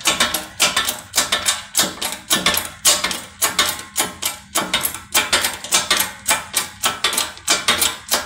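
Shop press being pumped by hand, with rhythmic metallic clanking at about three strokes a second, as it drives the conical small-end bushing out of a WD615 diesel connecting rod. The bushing is moving under pressure without being heated.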